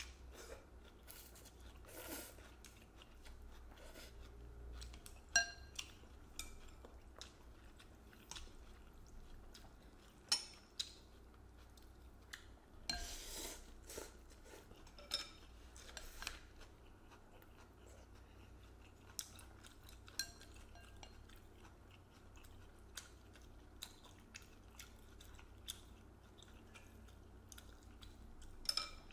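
Two people eating rice-vermicelli noodle soup: slurping noodles and chewing, with scattered clicks of chopsticks and spoons against ceramic bowls. A longer slurp comes about 13 seconds in.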